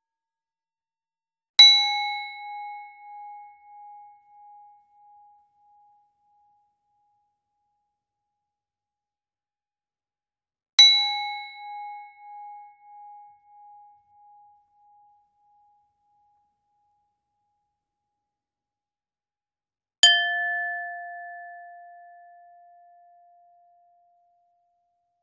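A bowl struck three times, each hit ringing out and fading away over several seconds. The first two strikes are the same pitch with a pulsing, wavering ring; the third, near the end, is lower and fades more smoothly.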